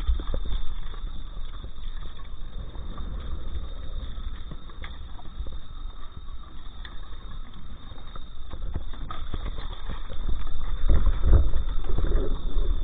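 Fresh-caught fish and spiny lobsters knocking and sliding against each other and the cooler walls as they are handled, over a steady low rumble. The handling gets louder and busier about ten seconds in.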